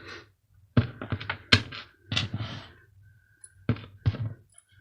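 Small salvaged scrap parts, such as screws, a fuse and brass bits, being handled and set down on a hard surface: a handful of irregular clicks and knocks.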